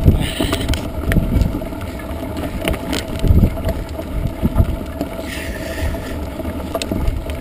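Wind buffeting the microphone of a camera on a mountain bike as it rolls over a rough grass-and-gravel track, with scattered knocks and rattles from the bike over the bumps.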